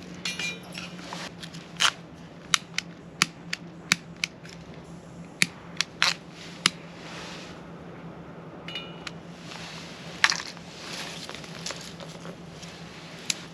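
Piezo igniter of a SOTO slide gas torch clicking over and over, about a dozen sharp single clicks at uneven spacing, most of them in the first seven seconds: the torch is being tried but is not lighting.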